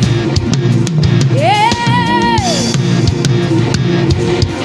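Live gospel praise-and-worship band playing: drum kit with bass drum hits and a bass guitar line, with a single held note that slides up, holds and falls away about a second and a half in.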